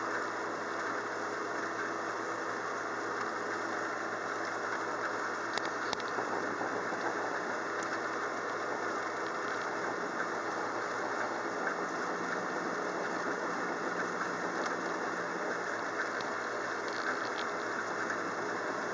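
Steady rain in a thunderstorm: a dense, even hiss with a faint low hum beneath it and a few sharp drip taps.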